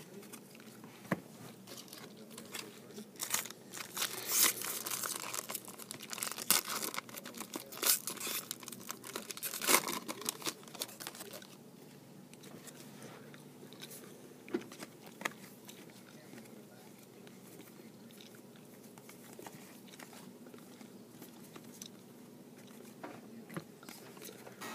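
Foil trading-card pack wrapper crinkling and tearing as it is opened, in a run of sharp crackles over several seconds. After that come softer rustling and scattered clicks as the cards are handled.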